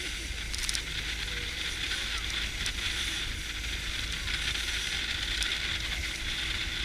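Steady rush of wind and water past an inflatable boat moving over choppy sea, a constant hiss with a low rumble underneath and a few light clicks.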